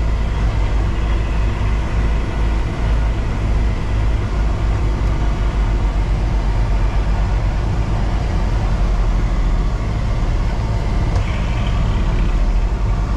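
Peterbilt 389 semi truck's diesel engine running at low speed, a steady low rumble heard from inside the cab as the truck creeps through a tight parking lot.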